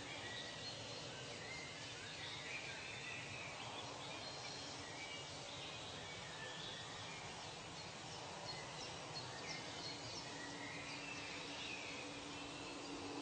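Nature ambience: several birds chirping and whistling, short calls scattered throughout, over a steady background hiss.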